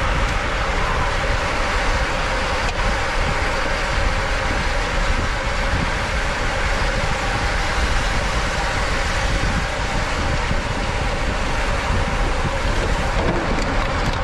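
Steady rush of wind on the microphone with tyre and road noise from a road bicycle riding at race speed, a faint steady hum underneath.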